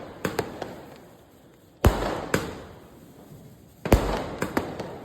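60-shot multi-colour aerial firework cake firing: a loud bang about every two seconds, each followed by a few smaller cracks.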